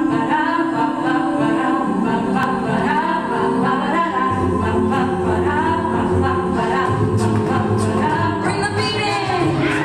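Mixed-voice a cappella group singing held chords into microphones. A deep bass voice comes in about four seconds in, and short vocal-percussion clicks join near the end.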